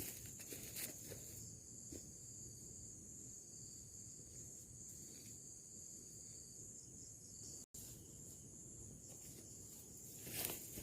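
Insects calling in a steady, continuous high-pitched chorus. A few faint rustles come in the first two seconds, and louder rustling comes near the end.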